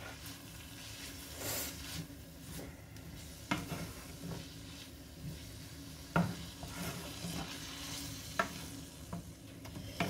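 Minced pork sizzling in a non-stick frying pan while a wooden spoon stirs and scrapes through it. Three sharp knocks of the spoon against the pan stand out.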